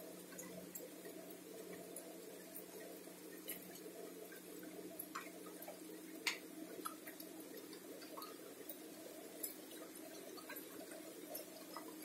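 Water dripping onto wet leaves in the dark: scattered, irregular drops ticking, one sharper tick about six seconds in, over a faint steady low hum.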